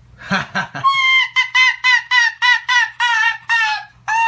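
Pet white fox making a run of high-pitched squealing calls, about three a second, each falling away at the end. A longer call follows near the end.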